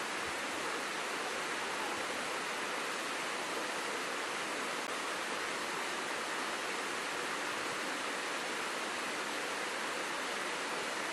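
Waterfall: a steady rush of falling water, an even hiss with no breaks or changes.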